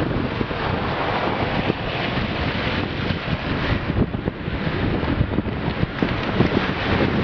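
Strong wind buffeting the microphone over the steady rush of rough surf.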